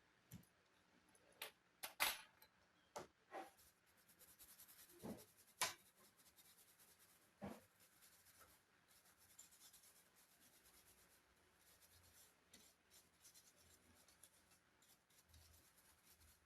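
Faint clicks and taps of small laptop parts being handled, with light scratchy rubbing through most of it. The clicks fall mostly in the first half, the loudest about two seconds in.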